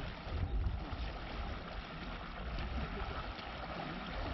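Steady rush of water and wind noise aboard a small FRP river-crossing boat, with a low buffeting rumble.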